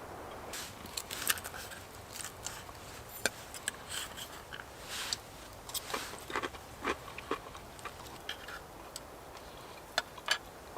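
A person eating close to the microphone: irregular chewing and crunching with many short, sharp clicks scattered through.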